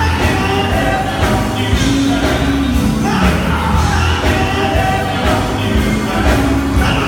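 Live gospel band playing, with electric guitar, bass and drums under male lead singing.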